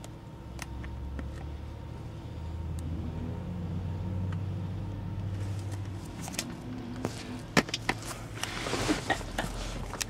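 Steady low rumble of a motor vehicle, swelling and easing over a few seconds, with scattered sharp clicks and knocks and a brief rustle near the end.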